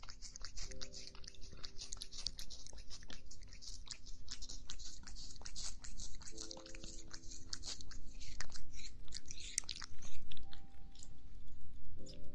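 A cat chewing and crunching its food close to the microphone: a quick, irregular run of small crisp crunches and clicks.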